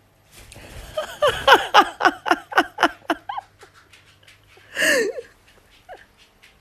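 Laughter: a quick run of about ten short 'ha' notes, each falling in pitch, about four or five a second, then a single louder, harsher cry near the end.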